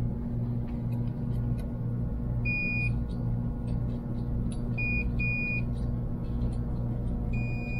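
Multimeter continuity beeper sounding in short steady beeps: one about two and a half seconds in, two quick ones around five seconds, and a longer one near the end, as the probes are touched across the hair dryer's fuse, which conducts and is still good. A low pulsing drone runs underneath.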